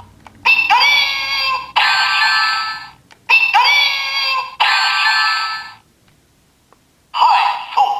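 Electronic sound effects and synthesized voice calls from a DX Ryusouken toy sword's speaker, triggered by an inserted Ryusoul (the MabushiSoul). There are four short bursts with sweeping tones, in two pairs, then a second-long pause, then the toy starts up again near the end.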